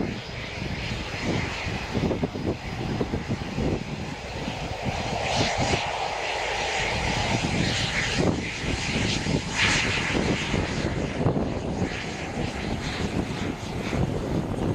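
Eurofighter Typhoon's twin EJ200 jet engines running as the fighter taxis along the runway: a steady jet rumble and hiss, with a whining note coming in for a few seconds midway.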